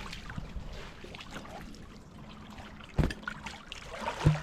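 Water splashing and trickling around a small boat on a river, with a sharp knock about three seconds in and another near the end.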